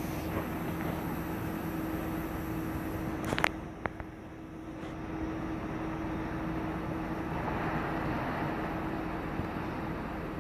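Steady outdoor background noise with a constant low hum, broken by a few sharp clicks about three and a half seconds in; the noise swells gently for a second or two near the end.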